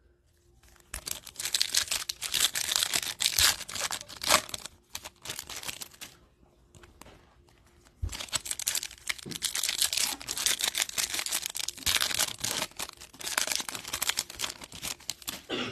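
Foil trading-card pack wrappers crinkling and tearing as packs are ripped open by hand. It comes in two stretches with a quieter gap of a few seconds in the middle.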